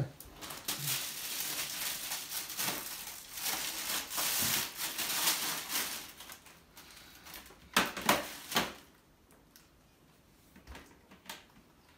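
Plastic packaging rustling and crinkling as the extension wand of a new Panasonic canister vacuum is pulled from its plastic sleeve, followed about eight seconds in by a few sharp clicks and knocks from the hard plastic wand parts being handled.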